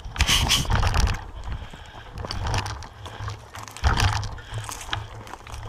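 Mountain bike knocking and rattling over rocky ground, in irregular clatters, over a low uneven rumble of buffeting on the GoPro's microphone.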